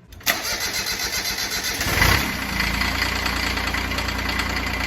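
Ford tractor engine cranked by its starter, catching about two seconds in with a brief surge, then settling into a steady idle.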